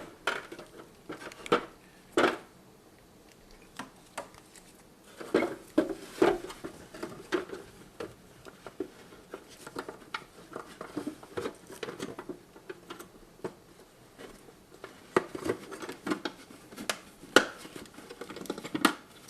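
Irregular clicks, taps and knocks of plastic dehumidifier parts being handled and fitted back into place.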